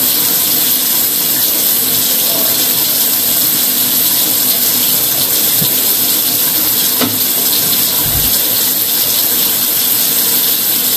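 Steady rushing hiss of water running through a sewer pipe, heard close up, with a brief low thump about eight seconds in.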